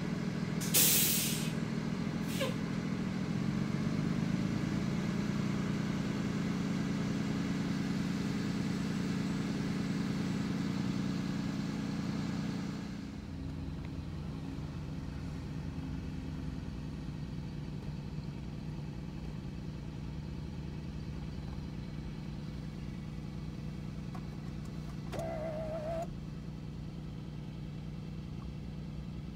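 School bus engines running, with a loud hiss of air brakes releasing about a second in and a shorter hiss just after, then a rising engine note as a bus pulls away. The engine sound drops at about the halfway mark and runs on steadily, with a brief pitched tone a few seconds before the end.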